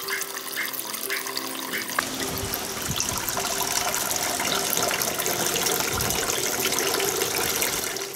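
Water running and splashing steadily from a small aquarium waterfall driven by a mini pump.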